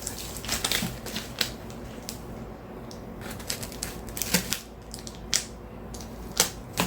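Cardboard shipping box being worked open by hand: scattered clicks, taps and crackles of cardboard and packaging.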